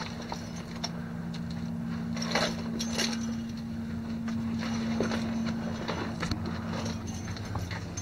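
A motor running with a steady low hum, with scattered clicks and rattles over it.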